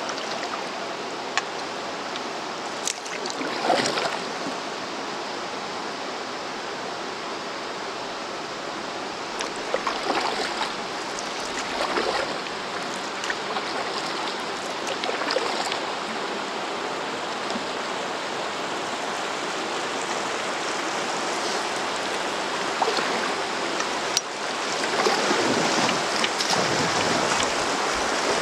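Rushing water of a river rapid, a steady hiss that grows louder near the end, with a few short splashes in between.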